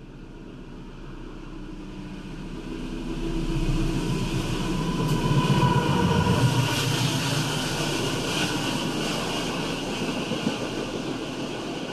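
A CC20-series diesel-electric locomotive passes close by on the adjacent track, its engine growing louder and loudest about halfway through. Then its passenger coaches roll past with steady wheel rumble and clatter.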